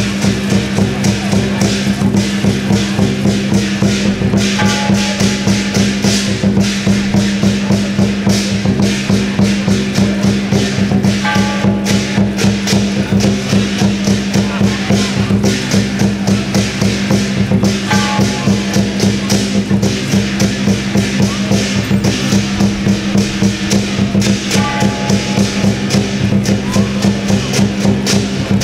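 Loud percussion-led music with a fast, even beat over a steady low drone.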